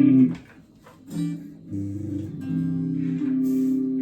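Gear4Music LA Select strat-style electric guitar with three single-coil pickups and stock strings, strummed: a sharp chord at the start, then several more chords, the last ringing on steadily.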